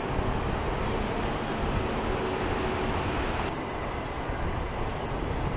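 Steady low rumble and hiss of traffic, with a faint steady hum throughout.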